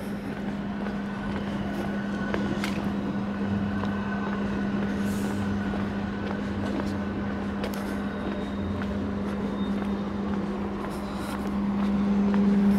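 A steady low vehicle hum that grows louder near the end, with footsteps on a pavement.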